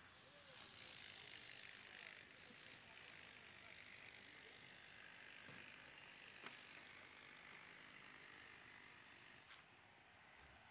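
Near silence: a faint steady hiss, with a single faint click about six and a half seconds in.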